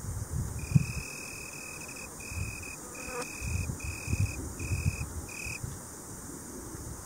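Male Italian tree cricket (Oecanthus pellucens) singing with raised wings: a soft, pure trilling note repeated in six phrases with short gaps, the first the longest at about a second and a half. A low, gusty rumble of wind on the microphone runs underneath.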